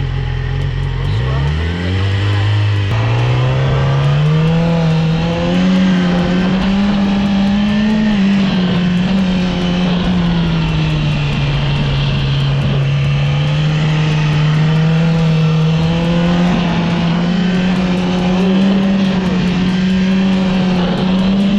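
2014 Yamaha R6's inline-four engine running hard under load on the road. Its pitch climbs over the first several seconds, eases down around the middle, then rises again and holds high.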